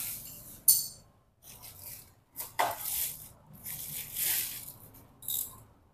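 Hand tools being handled and set down: a few rubbing, rustling scrapes, with a brief bright clink about a second in.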